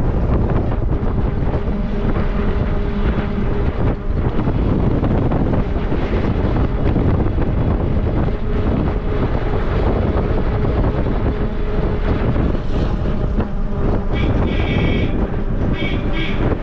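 Wind rushing over the microphone with the engine and road noise of a moving vehicle, steady and loud. A few short high tones come in briefly near the end.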